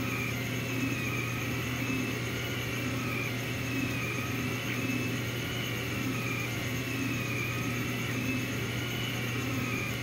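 Original Rostock delta 3D printer printing, its carriages sliding on 3D-printed PLA bushings. The stepper motors whine, the pitch rising and falling in slow waves about once a second as the effector moves, over a steady low hum.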